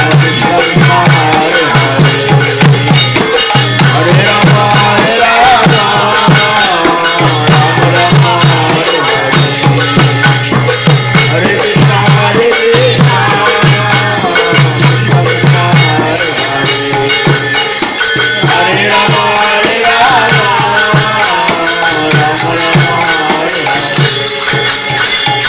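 Devotional kirtan chanting: a lead singer with a second voice, a harmonium, and hand cymbals (kartals) jingling in a fast, steady rhythm over a pulsing drum beat.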